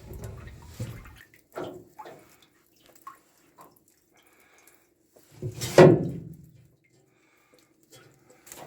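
Water dripping and splashing in short bursts, with one louder splash about six seconds in.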